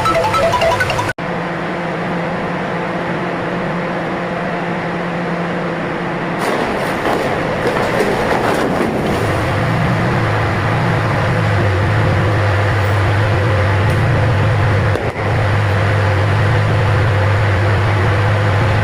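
Music cuts off about a second in. A steady mechanical drone follows, like a power tool's motor running, with a low hum that drops in pitch and grows a little louder about nine seconds in.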